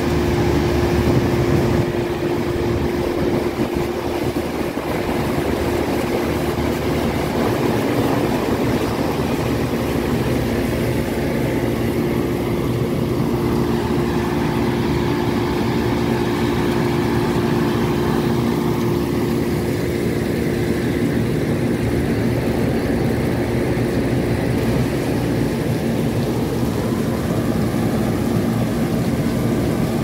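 Package-type air-conditioning unit running, its condenser fans and compressor making a steady mechanical drone with a low held hum.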